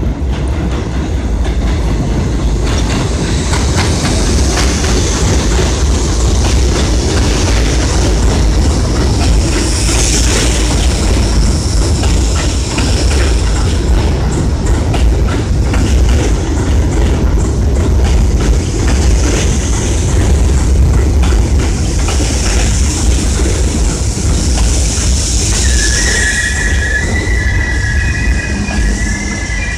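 Subway train running into an elevated station on the near track: a steady rumble of steel wheels, rail-joint clacking in the middle, and high-pitched wheel squeal several times. Near the end a high whine joins, stepping in pitch.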